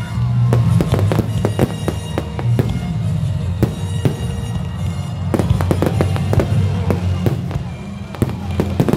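Aerial fireworks going off: a rapid, irregular series of bangs and crackling reports, several a second.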